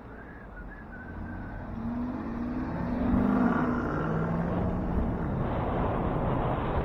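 A motor vehicle on a city street growing louder as it approaches, its engine note swelling about two to four seconds in, over a building rumble of road and wind noise.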